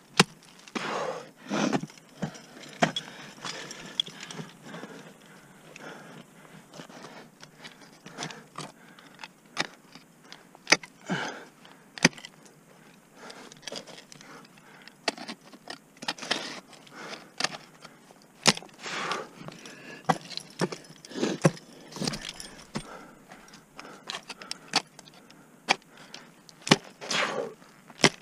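Ice tool picks and crampon points striking waterfall ice in sharp, irregular knocks as the climber moves up. Metal climbing hardware clinks and jingles between the strikes.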